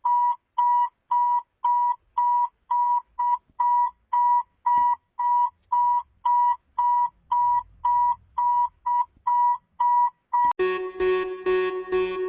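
Simulated Emergency Alert System alarm: a pure beep repeating about twice a second, then near the end a harsh buzzing alarm tone starts, pulsing about three times a second.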